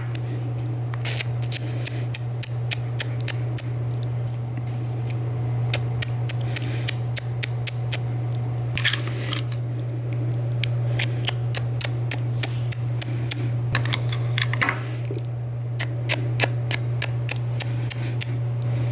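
Many small sharp clicks and clacks of plastic toys being handled, scattered irregularly, over a steady low hum.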